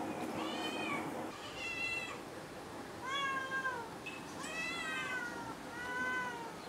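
Tabby cats meowing repeatedly: about six separate meows, each rising and then falling in pitch.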